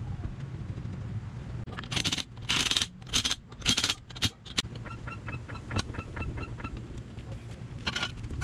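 A cordless impact wrench run in six short bursts, spinning the lug nuts onto the wheel, followed by a quick run of light metallic ticks and a brief scrape near the end.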